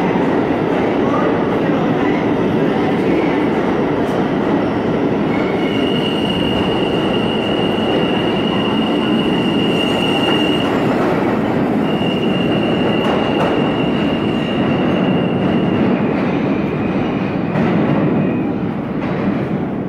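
An R160 New York City subway train pulling out of the station into the tunnel, with a steady rumble of steel wheels on rail. A high, steady wheel squeal sets in about six seconds in and runs on and off for about twelve seconds. The sound falls away near the end as the train leaves.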